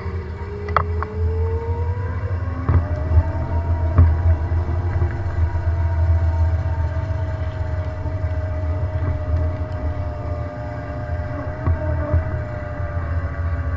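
Small electric motorbike motor whining, its pitch rising over the first few seconds and then holding steady. Heavy wind rumble on the microphone from riding along, with a few light knocks.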